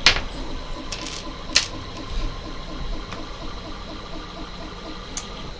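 Small plastic accessories and packaging being handled: a sharp click at the start and another about a second and a half in, with a few lighter ticks, over a steady background hum with a faint rhythmic pulse.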